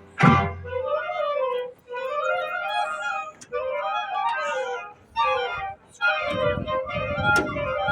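High school marching band playing: short repeated melodic phrases that rise and fall, with brief gaps between them. A heavier low part, with drums, comes in about six seconds in.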